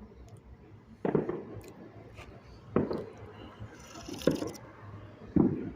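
Four scattered distant bangs of New Year's celebratory gunfire, each a sharp report with a short echoing tail, the last one loudest.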